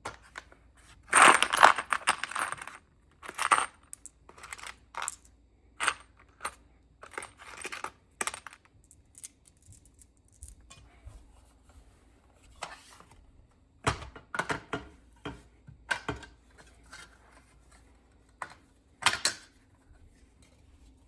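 Metal wall-mount parts and screws clinking and clattering as they are handled, with a loud metallic rattle about a second in and scattered clicks after.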